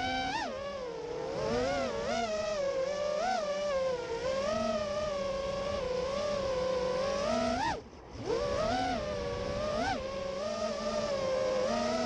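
FPV freestyle quadcopter's brushless motors whining, the pitch rising and falling constantly with the throttle. The sound drops out for a moment about eight seconds in, then picks up again.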